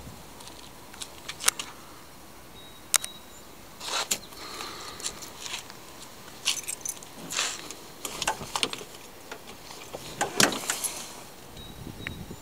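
Irregular sharp clicks and light metallic jangling rattles, in scattered clusters, from hands handling keys and fittings in a car's interior; the loudest snaps come about a second and a half, three seconds and ten seconds in.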